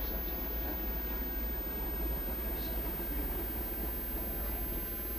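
Steady low hum and hiss of an old recording, unchanging throughout.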